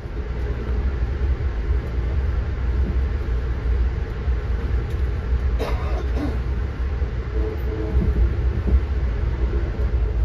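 Amtrak Northeast Regional passenger coach heard from inside while running at speed: a steady low rumble of the wheels on the rails with a faint hum, and a brief clatter about six seconds in.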